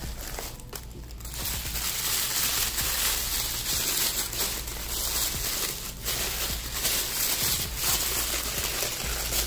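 Black wrapping tissue paper crinkling and rustling as it is pulled out of a box and unwrapped, thickening about a second in.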